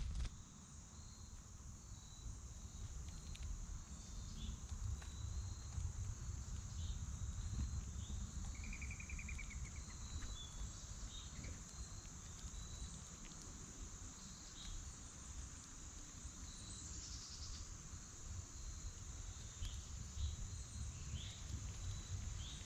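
Steady, high-pitched insect chorus running without a break. Scattered short bird chirps sound over it, with a brief trill about nine seconds in, above a low background rumble.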